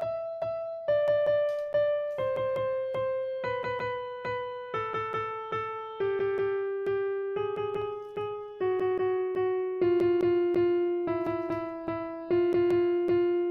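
Background music on a piano-like keyboard: quick repeated notes in a melody that steps slowly downward.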